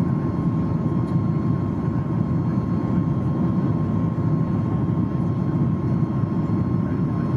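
Steady cabin roar of a Boeing 737 MAX climbing out, heard from a window seat by the wing: the low rumble and rush of its CFM LEAP-1B engines and airflow, with a thin steady tone above it.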